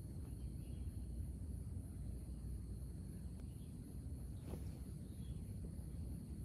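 Outdoor ambience of insects chirring steadily in a high-pitched, pulsing chorus over a low steady rumble, with one short soft knock about four and a half seconds in.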